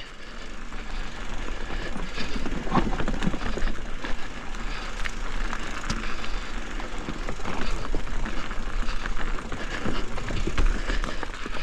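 Mountain bike being ridden over a rough trail: continuous tyre and rolling noise with frequent rattles and knocks from the bike over bumps.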